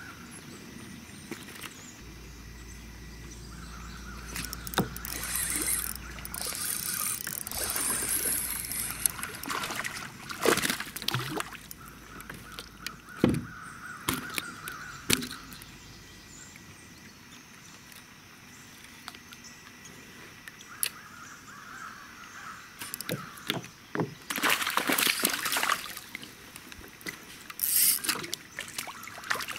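Handling sounds of fishing from a kayak: scattered knocks, clicks and clatters, several stretches of a steady whir lasting a few seconds each, and bursts of splashing or rustling noise.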